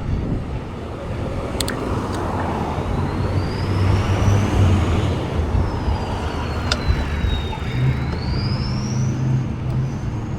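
Mountain bike riding noise: a steady rumble of tyres and bike over the trail, with a faint high whine that rises and falls and a couple of sharp clicks.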